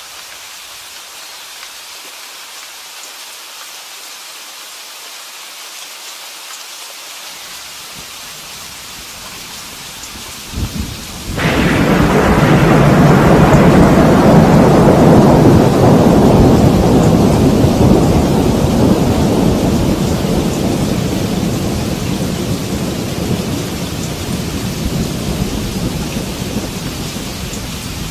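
Steady rain falling, then about ten seconds in a thunderclap breaks with a sharp crack and a long, deep rumble that slowly dies away while the rain keeps on.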